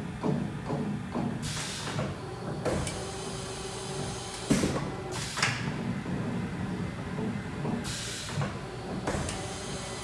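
Haas VF-2SS vertical machining center running, with a steady whine and several short hissing surges a second or two apart.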